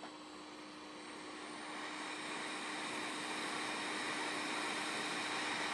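JBC hot air rework station blowing hot air onto a laptop motherboard to melt the solder under a small SMD part: a steady hiss of air that swells over the first two seconds or so, then holds, over a faint constant hum.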